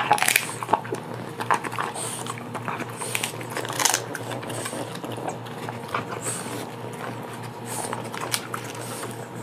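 A French bulldog–Boston terrier mix chewing a dried poultry treat: irregular crunches and bites, thickest in the first few seconds. A steady low hum sits underneath.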